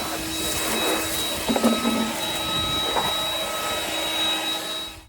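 Electric vacuum cleaner running steadily with a high whine, sucking leaves and debris out of an engine bay, then switched off and cutting out near the end.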